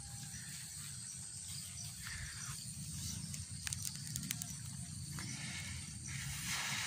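Quiet outdoor ambience at a lakeshore: a steady low rumble, a faint high hiss, and a few faint scattered clicks.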